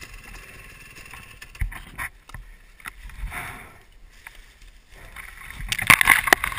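Brush and dry leaves rustling and scraping close to the microphone, with scattered knocks and clicks; the rustling gets much louder near the end.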